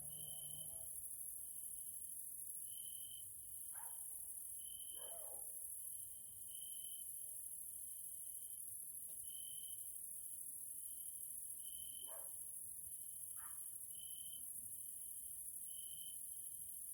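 Evening chorus of singing grasshoppers: a steady high-pitched hiss, over which a lower trill swells in regular phrases about every two seconds. A few faint, brief calls come in lower down around four to five seconds in and again near twelve to thirteen seconds.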